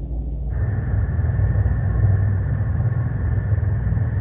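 Cartoon sound effect of a space battleship's engines: a steady, deep rumble that grows fuller about half a second in.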